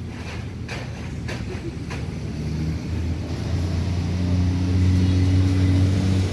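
Motorboat engine droning steadily and growing louder over the last few seconds, as if approaching. A few sharp clicks in the first two seconds.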